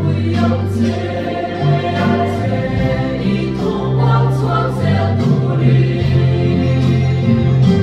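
Mixed church choir of women and men singing a hymn together, with long held notes.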